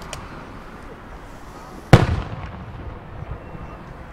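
One loud firework boom about two seconds in, trailing off in a rolling echo, over a steady low background hum, with a faint pop just at the start.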